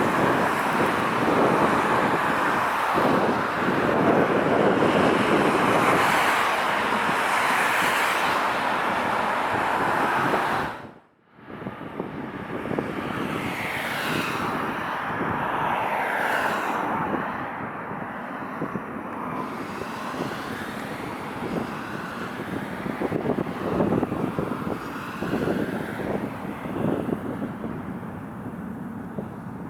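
Jet airliner engines heard through strong wind buffeting the microphone. The sound cuts out abruptly about eleven seconds in, then comes back quieter, with gliding tones for a few seconds.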